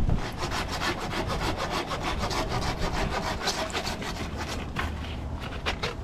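Rapid, evenly repeated scraping strokes, with a few louder, more separate strokes near the end.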